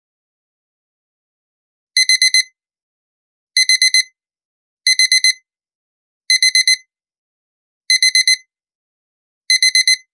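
Digital alarm clock beeping: a high electronic beep in quick bursts of four, repeated six times about one and a half seconds apart, starting about two seconds in.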